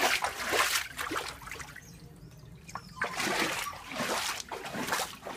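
Feet wading through shallow floodwater, splashing in repeated bursts, with a quieter stretch about halfway through.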